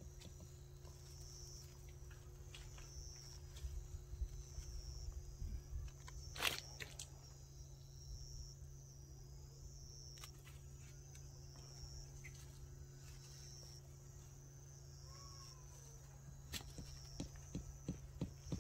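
Small hand hoe knocking and scraping into soil through black plastic mulch while onion seedlings are planted: a few scattered knocks, the loudest about six seconds in, and a quick run of taps near the end. Insects chirp in pulses in the background over a low steady hum.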